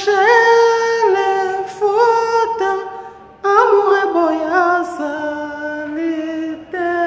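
Unaccompanied solo singing: one high voice holding long notes and sliding between pitches, in a few phrases separated by short breaks.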